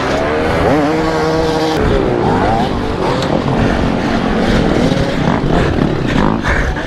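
Kawasaki KLX110 pit bike's small single-cylinder four-stroke engine revving up and down in quick bursts as the bike is worked over a log obstacle, with other dirt bike engines running close by.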